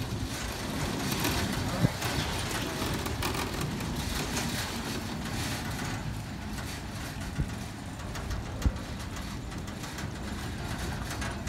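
Big Chute Marine Railway carriage moving along its rails, a steady low rumble with three short sharp clunks, and voices in the background.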